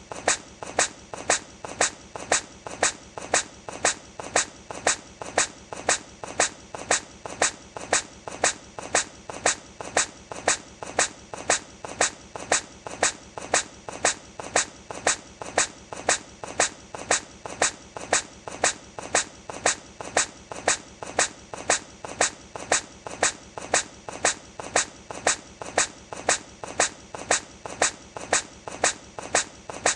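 A hedgehog sneezing, the same short sneeze looped over and over. The sneezes are brief and sharp and come at an even pace, about three every two seconds.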